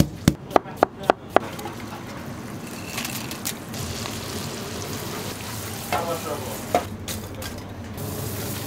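A metal meat mallet pounds a fish fillet through plastic film, about six quick, evenly spaced strikes, followed by food sizzling steadily over high heat, with a short clatter of utensils about six seconds in.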